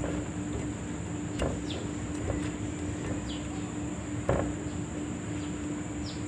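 Steady low hum with two soft clicks, about one and a half and four seconds in, and a few brief, high chirps that fall in pitch.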